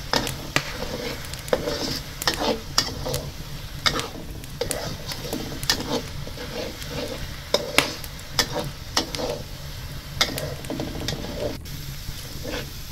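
A utensil stirring curry paste in a non-stick wok, scraping and knocking against the pan in irregular clicks, over a steady sizzle of the paste frying in oil.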